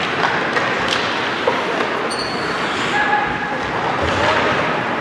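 Steady hubbub of spectators and play in a large indoor hall, with a few sharp knocks and some short high squeaks.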